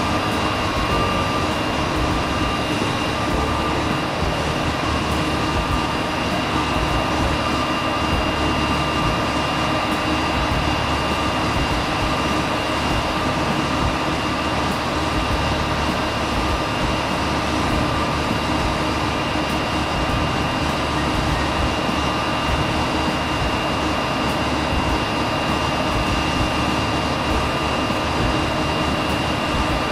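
Steady cabin noise of an Airbus A320 airliner: an even rush of jet engines and airflow with a few constant tones, unchanging throughout.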